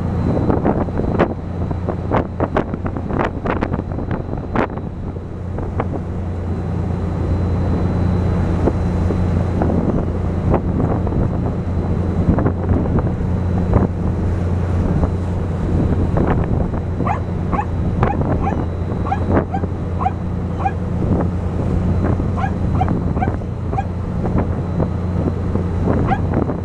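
Boat engine running steadily under wind on the microphone and rushing wake water, with gulls giving short, barking calls behind the boat, a few at first and many in quick succession through the second half.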